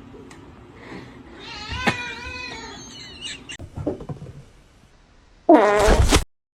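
A cat meowing: one drawn-out, wavering meow about two seconds in, then a short, much louder meow near the end that cuts off suddenly.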